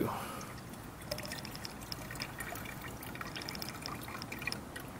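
Used engine coolant poured from a drain pan through a plastic funnel into a plastic jug: a steady trickle with small high drips and ticks.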